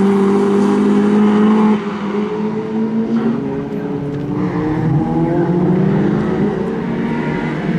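BMW E30 318is's 1.8-litre 16-valve four-cylinder engine at high revs, held steady until about two seconds in, then the revs and loudness drop and the pitch wanders up and down before building again near the end.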